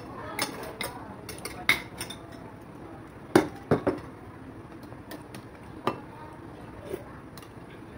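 Metal spoon and fork clinking and scraping against a soup bowl and plate while eating, with scattered light clicks and two louder clinks close together about halfway through.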